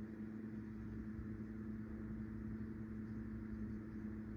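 Steady mechanical hum at a constant pitch over a low rumble.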